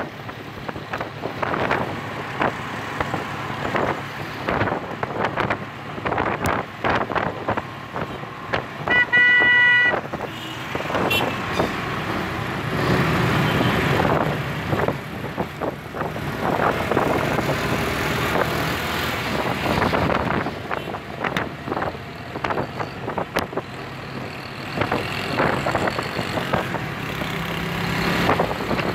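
Street traffic: motorcycles and other vehicles passing one after another. A vehicle horn sounds for about a second roughly a third of the way in.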